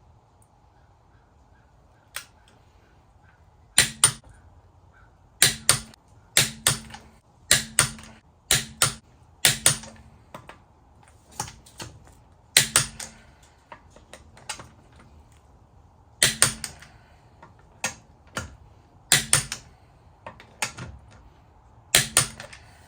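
Click-type torque wrench on the wheel's lug bolts set to 81 foot-pounds: about a dozen sharp metallic clicks, some doubled, spaced unevenly a second or a few seconds apart. Each click is the wrench releasing as a bolt reaches the set torque.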